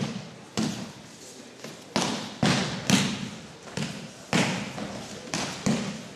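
Bodies and hands hitting tatami mats as an aikido partner takes repeated falls, about nine sharp thuds and slaps in quick succession, each echoing briefly in a large hall.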